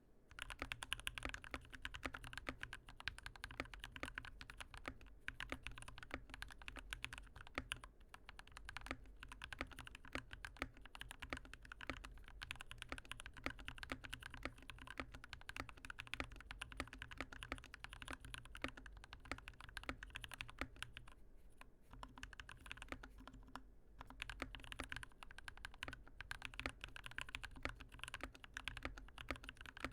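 Typing on a custom Skyloong GK64XS mechanical keyboard fitted with hand-lubed Gateron Yellow linear switches: a fast, steady stream of keystrokes, with a couple of brief pauses a little past the middle.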